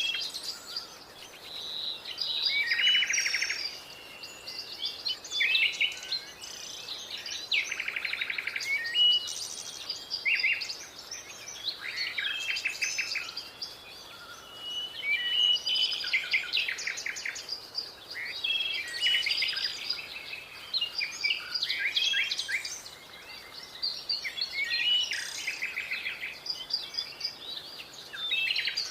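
Several birds chirping and calling, with many short overlapping calls and rapid trills coming in bouts.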